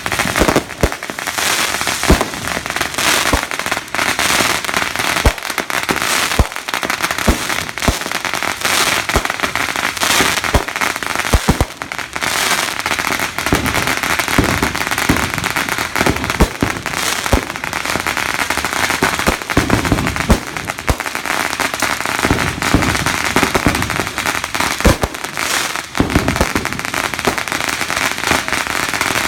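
Fireworks going off: a dense, continuous crackle with frequent sharp bangs and pops.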